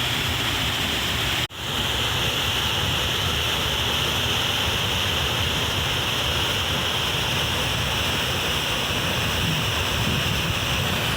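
Waterfall's steady rush of falling water, with a brief break about a second and a half in.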